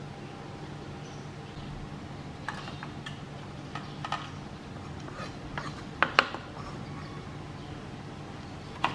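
Kitchen knife clicking on a wooden chopping board while slicing chillies: scattered sharp taps, the loudest pair about six seconds in, over a steady low hum.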